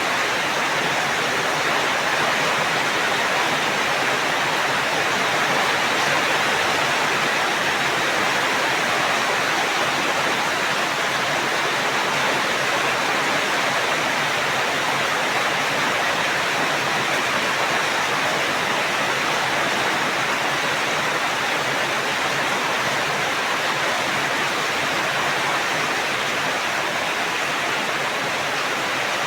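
Steady, even rain noise with no breaks or distinct drops.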